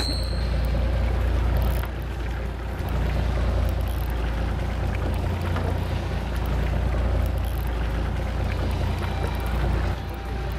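Steady low rumble of a fishing boat at sea, with wind and water noise over it. A short high tone sounds right at the start.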